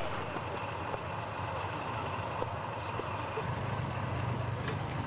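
An open military jeep's engine running low and steady as it tows a small field gun, growing stronger about halfway in, over steady outdoor background noise.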